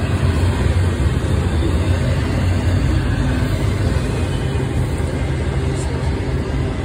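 Double-stack container freight train rolling past, a loud, steady rumble of the cars' wheels on the rails.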